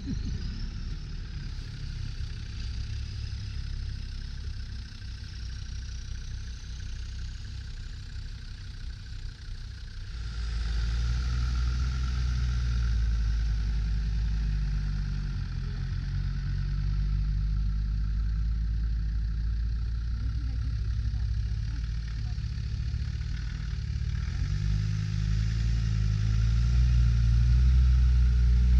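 Land Rover Defender engines pulling at low speed through deep snow, with a steady low engine note. The note gets louder about a third of the way in and again near the end, with the revs stepping up and down.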